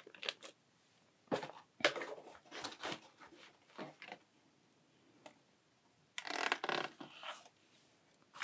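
Close-miked handling of unboxing packaging, a clear plastic bag and the cardboard camera box: scattered short crinkles and light taps, then a longer rustle about six seconds in.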